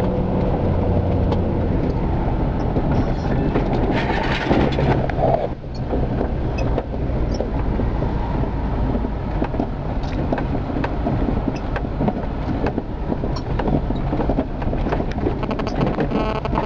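A 4x4 driving over a rough farm track, heard from inside the cab: a continuous low engine and tyre rumble with many small rattles and knocks. The sound dips briefly about five and a half seconds in.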